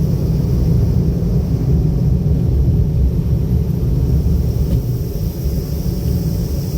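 A car driving steadily: a low, even rumble of engine and tyre road noise.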